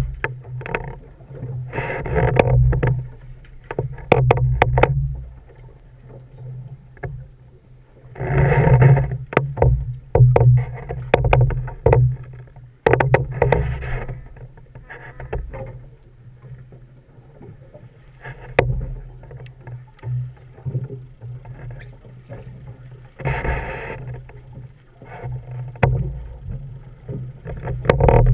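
Fishing boat at sea with a steady low hum from its engine, broken by several loud rushing bursts of about a second each, and a few sharp clicks.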